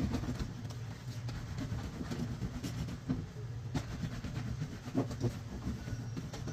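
Soapy laundry being scrubbed by hand up and down a ribbed washboard: a continuous rubbing rumble with scattered clicks and knocks from the board.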